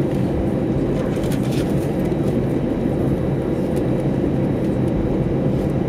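Airbus A320 jet engines running at a steady, even power, heard from inside the passenger cabin by the wing, with a low rumble from the aircraft rolling on the ground. A few faint rattles about a second and a half in.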